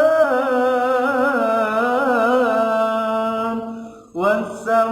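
Melodic Qur'an recitation by a single young reciter: a long drawn-out vowel sung with rippling, ornamented pitch, then held steady and fading out about three and a half seconds in. After a brief breath a new phrase begins near the end.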